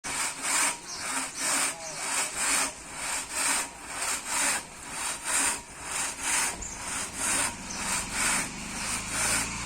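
A saw cutting through timber in even back-and-forth strokes, about two a second. A low steady hum comes in under the strokes near the end.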